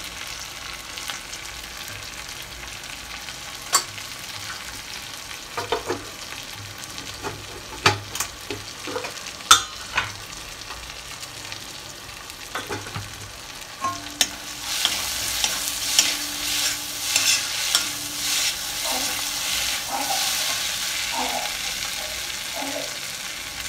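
Chopped onions, tomatoes and green chillies sizzling in oil in a kadai, stirred and scraped with a metal spatula that clinks sharply against the pan now and then. The sizzling grows louder about two-thirds of the way through.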